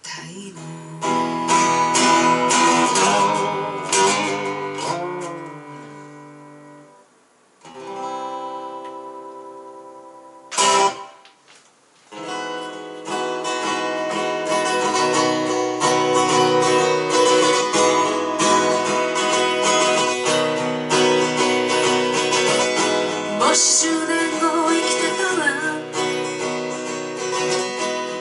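Acoustic guitar played live: strummed chords ring out and fade away, a single short sharp strum comes about eleven seconds in, then steady rhythmic strumming runs from about twelve seconds on.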